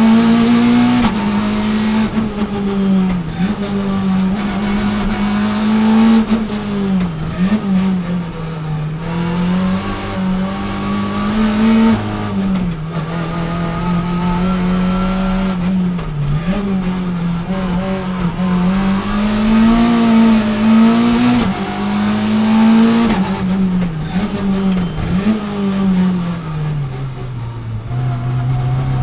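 Citroën C2 R2 Max rally car's 1.6-litre naturally aspirated four-cylinder engine at racing load, heard from inside the cabin. Its pitch keeps rising and falling as it accelerates, lifts off and shifts through the sequential gearbox, with several short dips in the revs.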